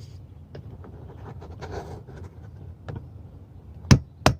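Faint handling noise and small clicks, then near the end two sharp hammer taps on a screw head, punching the screw through the sheet metal to get it started.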